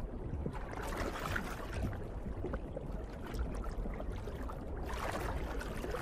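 Underwater water ambience: a steady rushing wash of moving water with a low rumble and faint crackle, swelling slightly about five seconds in.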